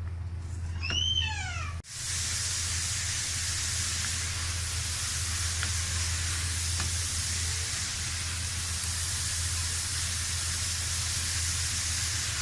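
Cauliflower with onion, garlic and spices frying in a pan: a steady sizzle that starts after a sudden break about two seconds in. Before it, a short high call slides down in pitch, and a low hum runs underneath.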